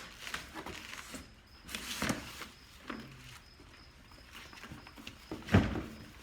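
Canned goods and cardboard boxes being handled: scattered knocks and clunks, a scraping rustle about two seconds in, and one loud heavy thump near the end.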